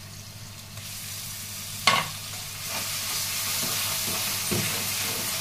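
Curd being stirred into hot masala in ghee in a steel kadai with a metal spatula: a steady sizzle with scraping, one sharp clink about two seconds in, and the sizzling grows louder a little before halfway through.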